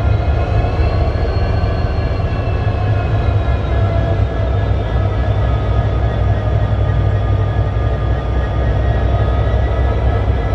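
Canadian National diesel-electric locomotives idling: a steady low engine rumble with several thin whining tones above it.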